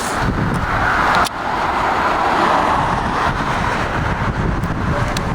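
A car going by on the road, its noise swelling and fading over about three seconds, over low wind rumble on the microphone, with a sharp click about a second in.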